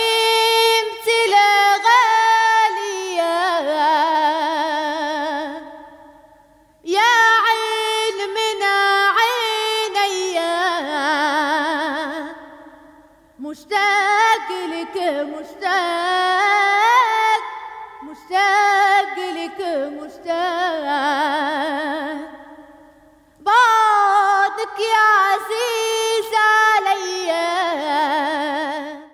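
A woman singing solo and unaccompanied, with strong vibrato, in four long phrases separated by short pauses.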